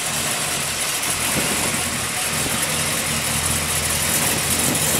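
Chevrolet Impala Super Sport's engine running at idle as the car creeps past, a steady low engine note that grows a little louder toward the end.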